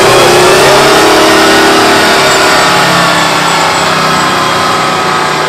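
Oshkosh M1070 heavy truck's diesel engine running hard under load as it drags a truck-pull sled, with a slight change in pitch early on and then a steady drone.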